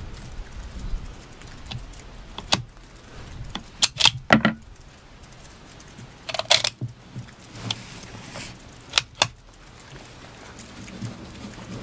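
Sharp metallic clicks and clinks from a Lee-Enfield No. 4 Mk2 rifle's bolt action being handled. They come in a few short clusters, the busiest about four seconds in and midway, over a steady hiss of rain.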